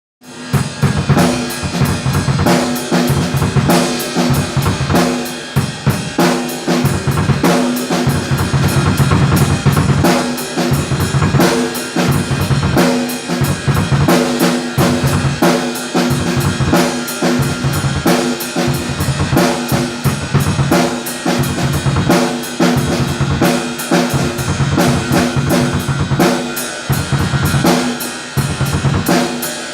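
Drum kit played in a fast, continuous beat, starting just after the opening.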